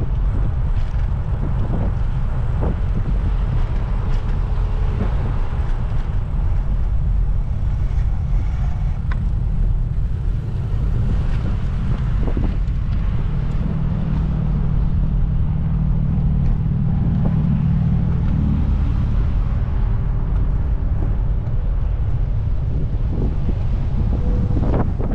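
Wind buffeting the microphone of a camera carried on a moving bicycle: a steady low rumble, with street traffic mixed in and a few light clicks.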